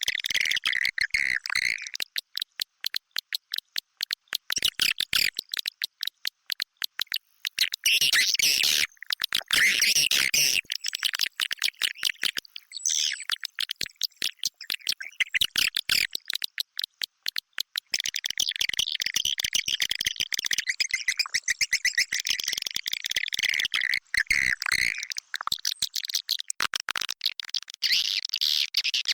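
Edible-nest swiftlet calls from a swiftlet-house lure recording: a rapid run of dry clicks with bursts of shrill twittering chirps. The twittering fades out for a few seconds twice and returns strongest in the second half.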